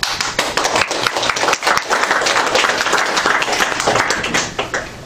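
A small audience applauding: a dense patter of hand claps that starts all at once and thins out to a few last separate claps near the end.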